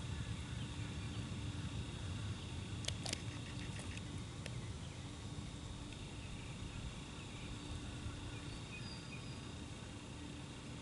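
Quiet outdoor ambience: a steady low rumble, with a short run of faint clicks about three seconds in and a single click a little later.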